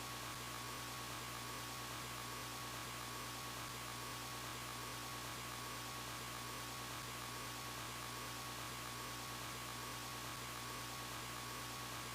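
Steady electrical hum and hiss with a faint, thin high tone: dead air on the simulated emergency-alert broadcast after its tones.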